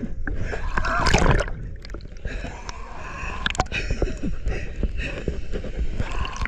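River water splashing and gurgling, uneven, with a few sharp knocks.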